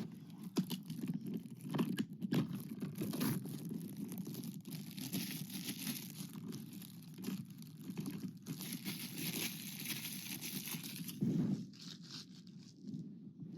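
Plastic shrink-wrap on a DVD case crinkling and tearing as it is peeled off by hand, an irregular run of crackles and rustles.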